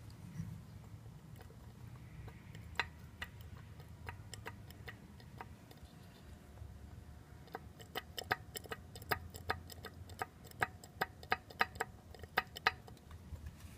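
A series of sharp, short clicks or taps: a few scattered ones at first, then a quicker irregular run of about two to three a second through the second half, over a low steady hum.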